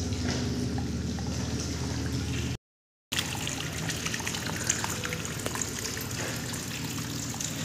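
Water from a hose pipe running over a flooded mud floor and trickling into rat burrows, an even watery rush with a low steady hum beneath it. The sound drops out for about half a second after two and a half seconds.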